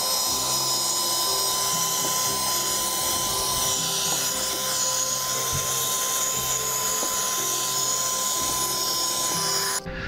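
Piranha PVC-4005 12 V, 60 W handheld car vacuum running: a steady high motor whine over a rushing hiss of air as it sucks dust off the car's floor mat. It switches off abruptly near the end.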